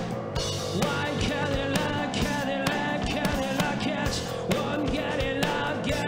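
Live punk rock band playing: a male singer sings into a handheld microphone over electric bass, guitar and drums, with a steady driving beat.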